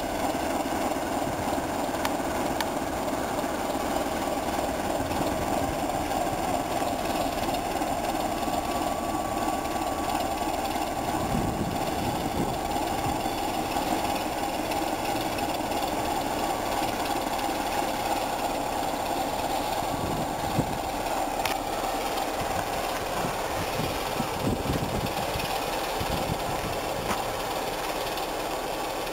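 BR Class 25 diesel locomotive's Sulzer six-cylinder engine running steadily while the locomotive shunts slowly through the yard. A few low thuds come in about halfway and again toward the end.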